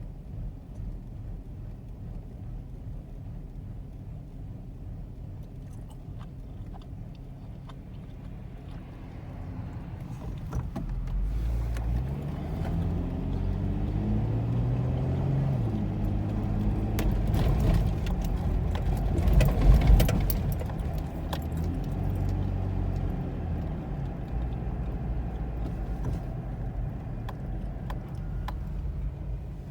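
Nissan VG33E 3.3-litre V6 idling, then revved from about ten seconds in, its pitch climbing and falling and loudest near twenty seconds, before settling back toward idle. The rough idle is put down to a knock sensor fault code.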